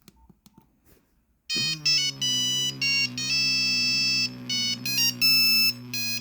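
Nokia 3310 playing a monophonic ringtone: a loud, bright beeping melody of single notes that starts about a second and a half in, over a low steady buzz. Before it, a few faint clicks.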